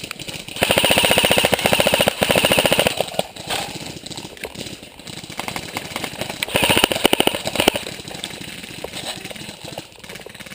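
Airsoft gun firing on full auto in two rapid bursts: a long one of about two and a half seconds near the start, and a shorter one of about a second past the middle, with scattered single shots and clicks in between.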